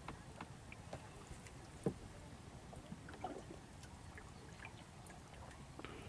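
Water dripping and trickling off a wet rope and small fishing net as they are hauled hand over hand out of the river into a wooden boat, with scattered faint ticks and light knocks, the sharpest about two seconds in.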